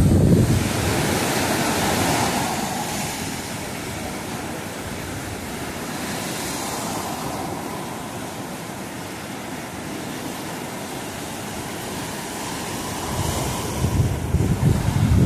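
Black Sea surf breaking and washing up a sandy beach: a continuous rushing hiss that swells as each wave comes in. Wind buffets the microphone with a low rumble at the start and again near the end.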